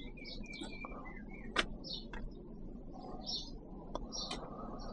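Small birds chirping and whistling with short repeated notes, over a low steady background hum. A single sharp click about a second and a half in.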